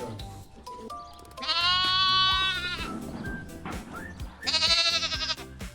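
Two long bleats, the first about a second and a half long, the second shorter, over background music with a steady beat.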